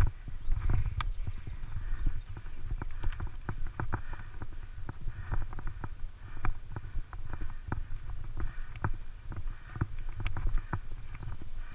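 Bicycle rolling over a gravel dirt road: a constant, irregular rattle of sharp clicks and knocks from the frame and tyres jolting over stones, over a steady low rumble.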